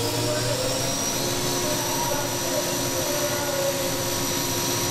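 Spindle of a 20-year-old Hurco VM1 CNC vertical milling machine spinning at about 8,000 rpm: a steady high whine over a hum, rising slightly in pitch during the first second as it comes up to speed, then holding. It sounds really good, a smooth healthy spindle run.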